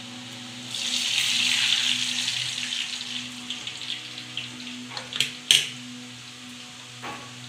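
Dough strands sizzling in hot frying oil in a kadai. The sizzle swells about a second in and fades over the next few seconds. Then come a few sharp metal clinks from the steel sev press being handled, the loudest a little past halfway, over a low steady hum.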